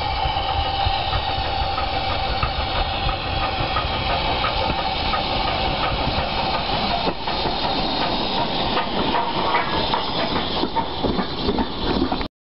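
BR Standard Class 4MT 2-6-4T steam tank locomotive running with a passenger train, a steady hiss of steam over the engine's rhythm. The sound turns rougher as the train passes close by in the last few seconds, then cuts off suddenly just before the end.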